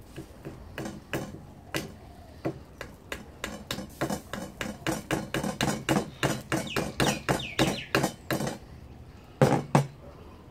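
A wooden mallet tapping a small wooden stick through a raw chicken into a sugar cane stalk: a long run of light taps, a few a second and quickening in the middle, then one louder blow near the end.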